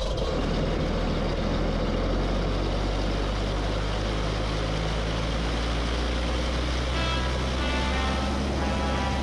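Cessna 185 floatplane's piston engine and propeller running steadily in cruise, a constant low hum under a broad rushing noise.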